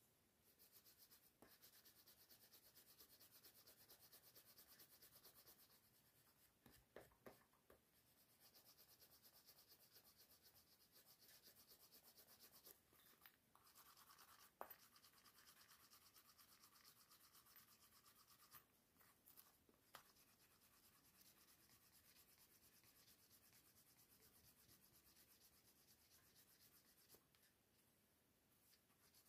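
Faint rubbing of a wooden burnisher worked quickly back and forth along the edge of a leather card holder, burnishing the edge smooth before edge painting. The strokes come in several runs with short pauses between them, with a few light clicks.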